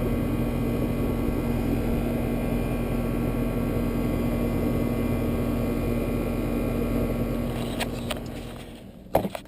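Air-conditioning condensing unit running steadily, its compressor and condenser fan making an even hum and rush. The sound fades out about eight to nine seconds in.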